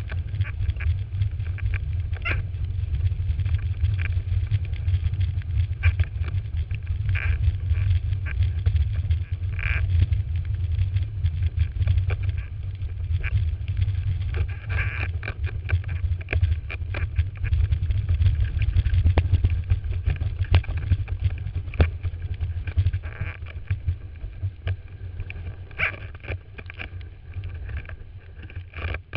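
Wind buffeting the microphone of a camera on a windsurfing rig while sailing, a heavy steady rumble, with water splashing and brief hissing bursts of spray every few seconds.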